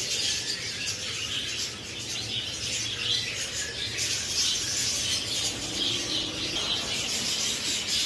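Coconut-fibre (coir) rope rubbing and rasping as it is twisted and gripped with pliers by hand, with small birds chattering steadily in the background.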